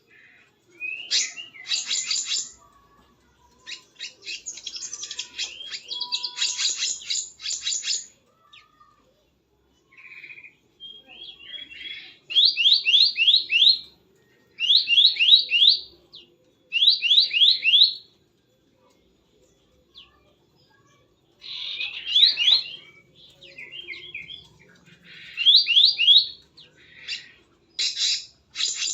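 Small birds calling in bursts of high, rapid chirps and rattling trills. In the middle stretch, a run of quick notes comes back about every two seconds.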